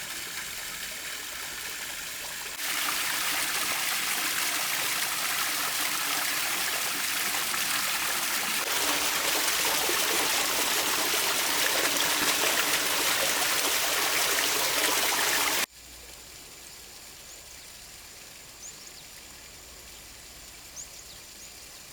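Water running and splashing down a small man-made stone waterfall into its pool, a steady rushing that jumps louder a few seconds in. It cuts off abruptly after about sixteen seconds to a quiet background with a couple of faint high chirps.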